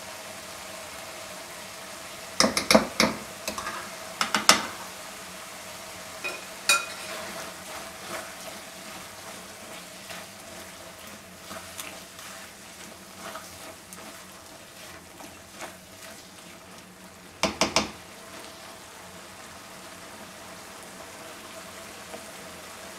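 Chicken in a thick sauce sizzling gently in a wok while cream is stirred in, with a steady low sizzle. Clusters of sharp knocks and scrapes from a spoon and spatula against the metal pan come a few times, the loudest about three seconds in and again about three-quarters of the way through.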